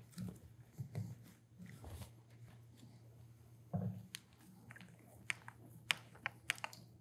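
Quiet hand-handling sounds as a brass Y fitting is threaded into an oil drum's bung and a desiccant breather is screwed onto it: soft knocks at first, a thump about four seconds in, then a run of small sharp clicks near the end.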